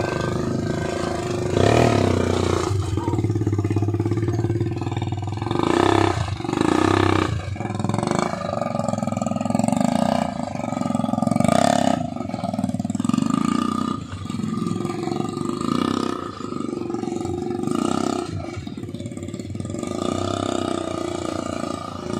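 ATV (quad bike) engine running, its revs rising and falling again and again as it is ridden along a dirt track.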